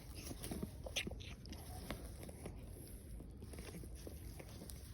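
Cat biting and chewing at something: a run of faint, irregular clicks and small crunches.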